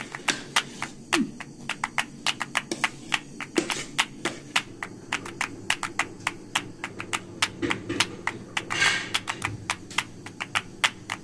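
A rapid run of sharp clicks or taps, about four a second and unevenly spaced, over faint low tones.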